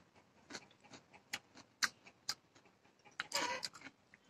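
A person chewing raw cucumber: faint, scattered crunching clicks, with a longer crunching chew about three seconds in.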